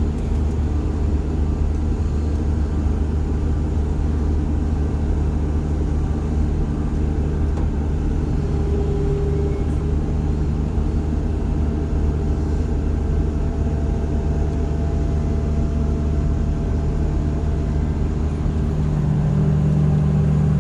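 Case IH 7088 combine's diesel engine running steadily, growing a little louder near the end.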